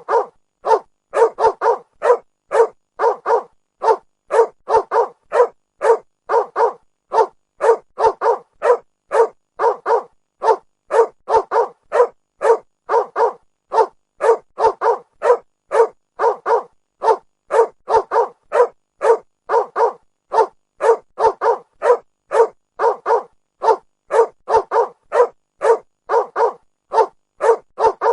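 A dog barking over and over at a steady, rapid pace, about two to three short barks a second.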